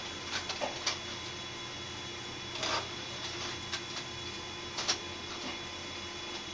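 Steady electrical hum with a few faint steady tones, broken by scattered light clicks and short rustles, about eight of them within the first five seconds.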